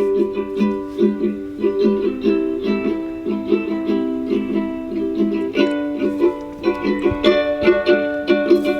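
A JBL Charge 4 portable Bluetooth speaker playing a song at half volume: a slow intro of repeated plucked-string notes with little bass yet.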